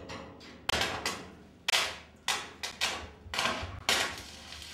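Hammer blows on the iron framework of a waterwheel: about seven irregular strikes, each ringing out briefly.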